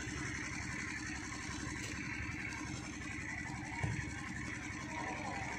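Spectators murmuring over a steady low rumble; about four seconds in, a single dull thump as the football is kicked from the penalty spot.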